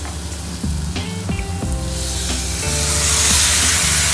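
Seasoned chicken pieces going into hot fat with fried onions and spices in a saucepan and stirred with a spatula, sizzling. The sizzle grows louder about halfway through as more of the meat hits the pan.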